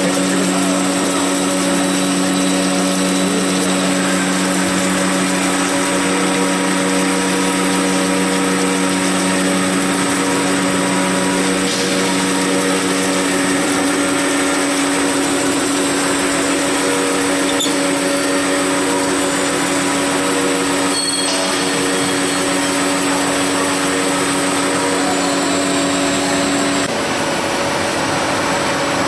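CDMP2012A CNC plate drilling machine drilling through a metal plate: a steady machine whine with constant humming tones. Shortly before the end part of the tone cuts off and the sound drops slightly as the drilling stops.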